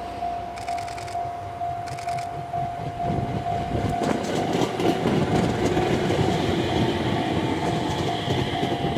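An Aoimori Railway 701 series electric train running past on its arrival at a station. Its wheel-on-rail rumble and clatter swell about three seconds in as the cars go by, with a thin whine in the middle and a high thin tone near the end, all over a steady high-pitched tone.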